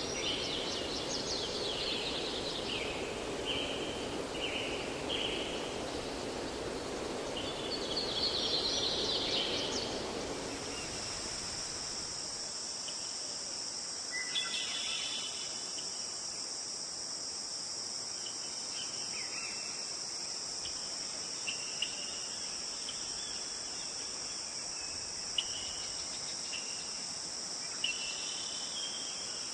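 Birds calling over a low rushing noise. About ten seconds in, the rushing stops abruptly and a steady high-pitched insect drone takes over, with scattered bird chirps and a few sharp ticks.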